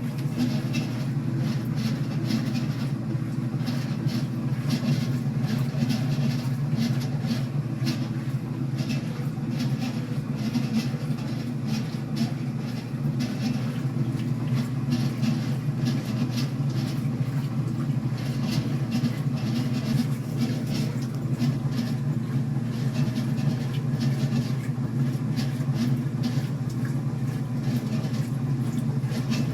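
Commercial top-load washing machine running with a loud noise from its drive pulley: a steady low drone with a fast, rough clatter on top.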